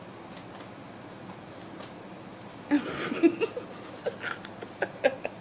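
Quiet room tone, then about halfway through a woman close to the microphone breaks into a few short, breathy chuckles.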